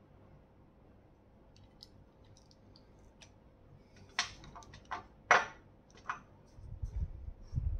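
Plastic and metal handling clicks and knocks from a rechargeable LED torch and its charger plug being taken apart and put down. The loudest sharp knock comes about five seconds in as the torch goes down on a glass tabletop. Low rubbing handling noise follows near the end.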